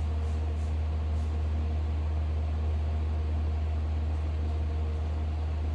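Steady low mechanical hum with a faint even hiss above it, unchanging throughout.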